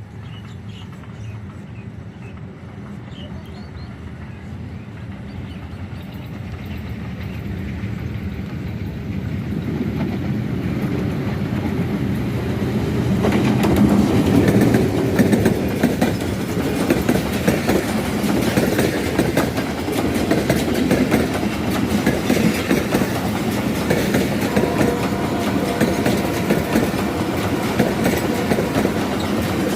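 Pakistan Railways passenger train approaching, growing steadily louder over the first dozen or so seconds, then passing close with a rapid, steady clickety-clack of wheels over the rail joints.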